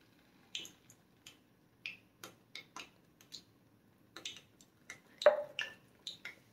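Hot cooking oil crackling with scattered small pops as spoonfuls of bhalla batter drop in to deep-fry, with one louder click about five seconds in.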